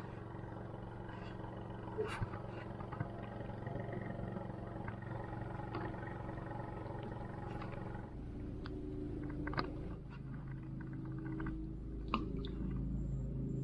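A small boat's motor running steadily, its note shifting about eight seconds in, with a few light knocks over it.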